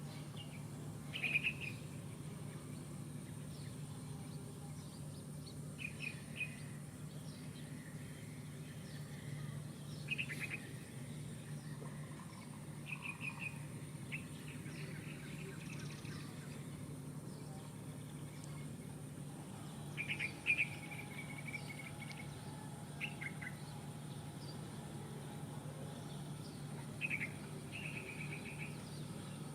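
A bird calling in short chirping bursts every few seconds. Under the calls run a steady low hum and a thin, steady high-pitched tone.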